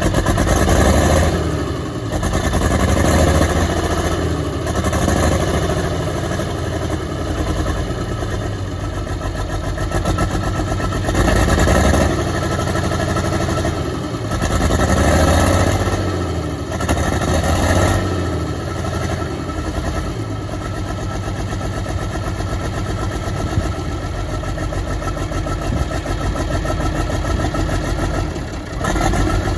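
Track Marshall 90 crawler's diesel engine running rough with a misfire, revved up and dropping back several times, then running more evenly in the second half.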